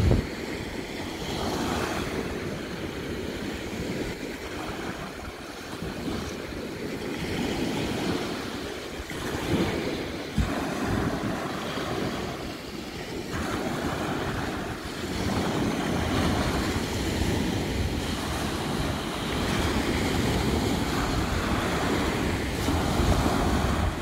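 Small waves breaking and washing up a sandy shore, the surf rising and falling every few seconds, with wind buffeting the phone's microphone.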